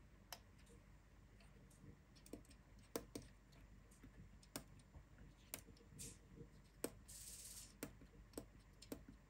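Faint, irregular clicks, about a dozen, from the NAD C 740 receiver's front-panel controls being operated as the tuning and input source are stepped through. A short hiss comes about seven seconds in.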